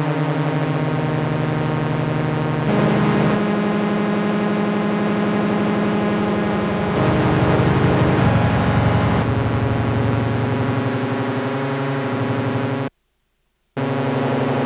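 Held synthesizer notes played through an EarthQuaker Devices Pyramids flanger pedal, with its rate toggle in the fast range. The notes change every few seconds. The sound cuts out completely for under a second near the end.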